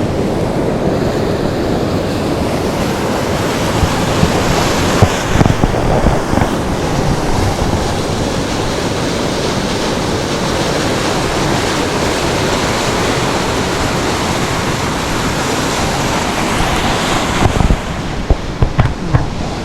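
Loud, steady rush of creek water pouring over a waterfall, with a few short thumps near the end.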